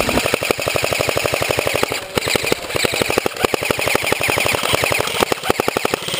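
Airsoft electric gun (AEG) firing on full auto: long strings of rapid, evenly spaced shots with brief pauses between bursts.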